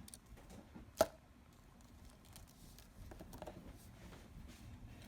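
A single sharp click about a second in, over faint scattered ticks and rustling handling noise.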